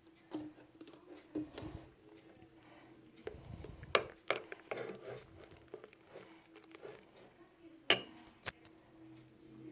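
A spoon clinking and tapping against a bowl in a run of irregular small knocks, with two sharper clinks about four and eight seconds in.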